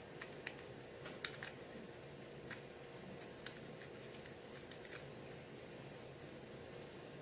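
Light, irregular clicks and taps of centrifugal clutch parts being handled and fitted together by hand, with the bearing being pushed into the clutch shoe assembly. There are about a dozen small clicks, spread unevenly, over a faint steady hum.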